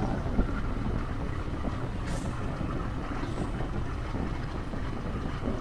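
Motorcycle riding along a highway: a steady low engine and road drone with wind rush over the microphone, and one brief tap about half a second in.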